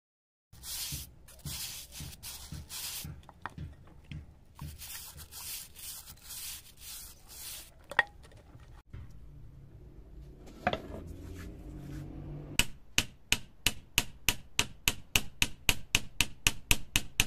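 Rough scrubbing noise in two long stretches as a rusty level is worked in a foaming cleaning bath. Then, about two-thirds of the way in, comes a steady run of sharp strokes, about three a second, as a flat metal scraper chips rust off the level's edge.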